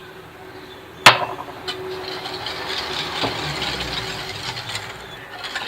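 A sharp clack about a second in, then a few seconds of steady rattling hiss as sugar is poured into the beaten eggs and oil and mixed in.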